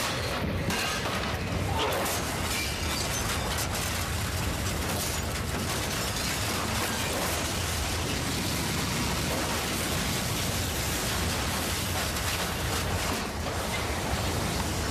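Tornado-force wind as a sound effect, a loud continuous rush of noise with debris rattling and breaking in it.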